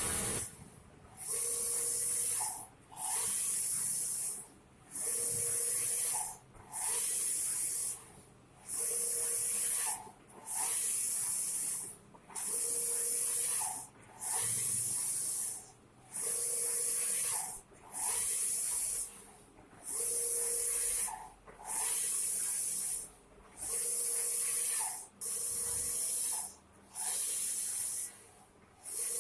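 Taimes large-format banner printer printing: the print-head carriage sweeps back and forth about once every two seconds. Each pass is a steady hiss, followed by a short dip and a brief whine at the turnaround.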